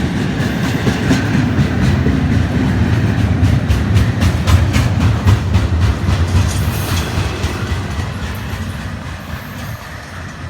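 The last cars of a freight train rolling past, a low rumble with a quick run of wheel clicks in the middle. The sound fades away as the end of the train goes by, near the end.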